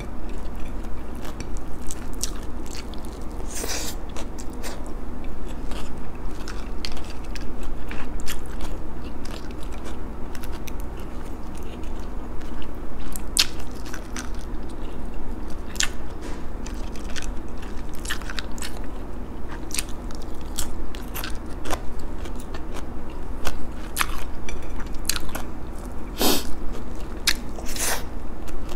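Close-up chewing and crunching of food, with many short sharp crunches scattered throughout: crispy fried danggit (dried rabbitfish) eaten with rice.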